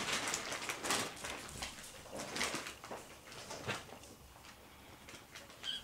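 Ragdoll kittens scuffling on a sofa: a run of scratchy scrapes and soft taps of paws and claws on the upholstery, busiest in the first few seconds and thinning out after. A short high chirp near the end.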